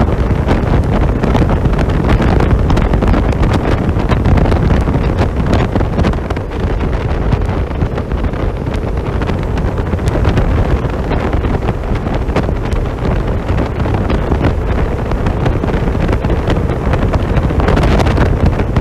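Loud, steady wind rush buffeting the microphone on a Kymco Downtown 350i scooter held at its top speed of about 137 km/h, with the engine running flat out underneath.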